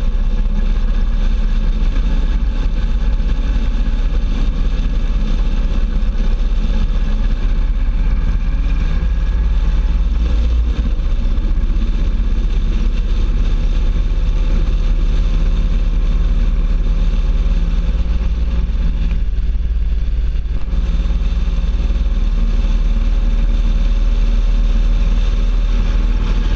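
Motorcycle riding at road speed: a steady engine drone mixed with heavy wind rush on a low, fork-mounted microphone.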